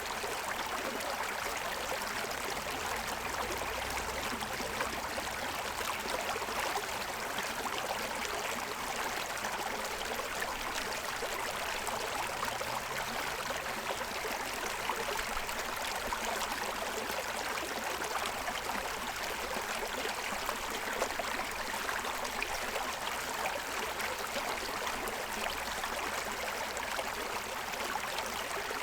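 Forest stream running over the stones of its bed: a steady rush of water.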